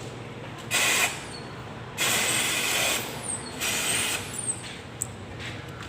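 Pneumatic impact wrench fed with compressed air, hissing in three bursts: a short one, a longer one of about a second, then a short one.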